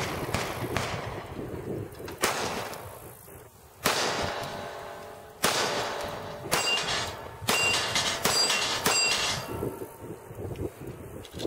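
Sig Sauer P938 compact pistol firing 147-grain 9mm rounds, about a dozen shots. The first few are spaced a second or more apart, then a quicker string comes in the second half. Thin metallic pings of steel targets being hit ring after the later shots.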